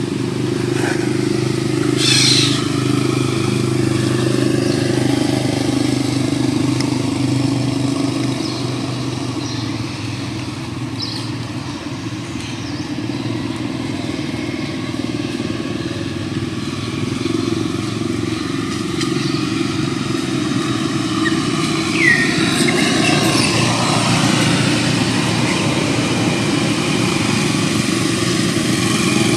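A small engine running steadily at an even pitch, with a brief high chirp about two-thirds of the way through.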